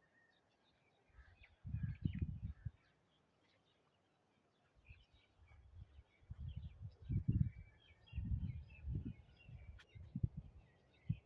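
Small birds chirping and twittering faintly in the background, with repeated bursts of low rumble, the loudest sound, about a second and a half in and again through the second half.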